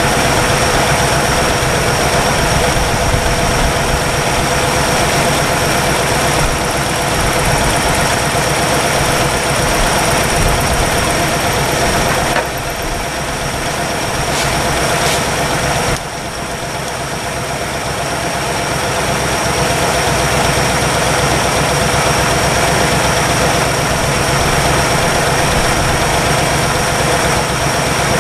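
1962 Chevrolet engine idling steadily while warming up on fresh oil after sitting 35 years. The sound drops suddenly twice around the middle, then builds back up.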